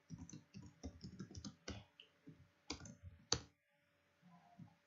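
Typing on a computer keyboard: a run of quick keystrokes, with a short pause a little past the middle.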